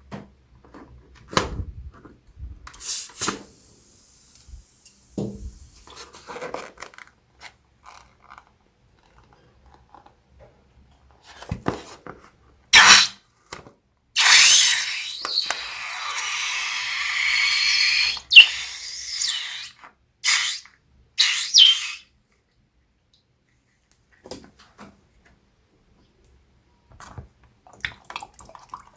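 Hands working balloons and slime ingredients: scattered small clicks and rustles, a sharp loud snap about 13 seconds in, then a hissing rush lasting about four seconds, followed by a few short scrapes.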